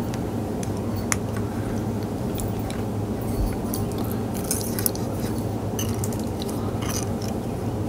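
Light clicks and scrapes of thin (.030) lure wire being bent and worked with steel needle-nose pliers, over a steady low hum.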